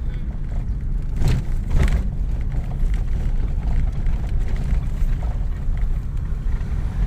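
Car running at low speed on a dirt road, heard from inside the cabin: a steady low rumble of engine and tyres, with two brief knocks a little over a second in.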